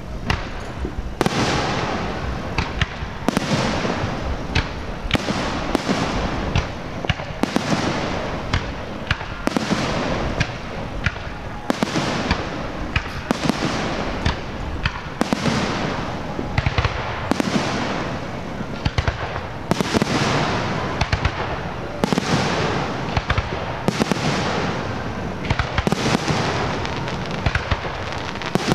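Fireworks display going off continuously: many sharp bangs and shell bursts, several a second, over a steady crackle.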